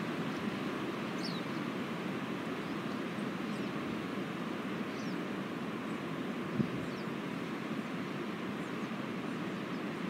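Wind rushing steadily through conifer trees. A brief low thump comes about two-thirds of the way through, and a few faint high bird chirps are scattered through it.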